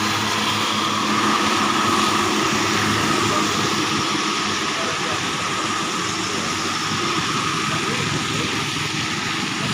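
Steady, loud engine and road noise of heavy motor vehicles passing at close range, with no horn sounding.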